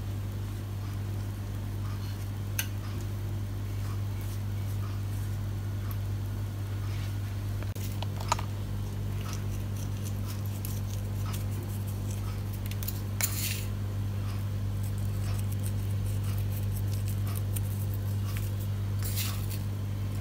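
Steady low hum from a kitchen appliance, with a few light clicks and taps as pastry utensils and a bowl are handled and seeds are sprinkled.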